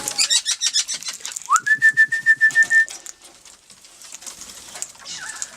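Parrots chattering in quick, high chirps for about the first second. Then a whistle slides up and holds one pitch for about a second.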